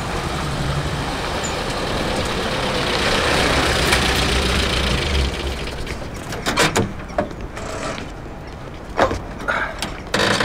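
A motor vehicle's engine and road noise swell to a peak about four seconds in and then die away, followed by several short knocks and clatters.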